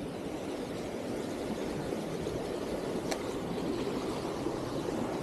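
Steady rushing noise of a single-speed mountain bike's tyres rolling through a wet, muddy path, with one sharp click about three seconds in.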